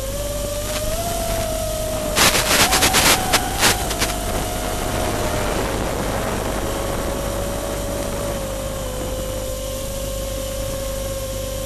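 FPV quadcopter's electric motors and propellers whining steadily, the pitch drifting up and down with the throttle. A quick run of sharp crackles comes about two to four seconds in.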